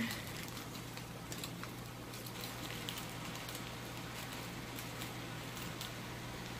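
Faint crinkling of a clear plastic zip-top bag being handled and opened, with scattered soft crackles, over a steady low hum.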